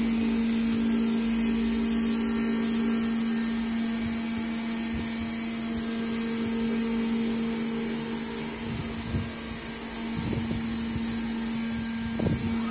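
Spindle of an Acctek AKG1212C ATC CNC router running at a constant speed: a steady hum with an even pitch over a hiss, with a few short bursts in the second half.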